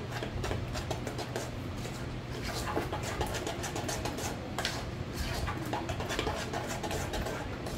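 A utensil stirring thick cornbread batter in a mixing bowl: irregular clinks and scrapes against the bowl, over a steady low hum.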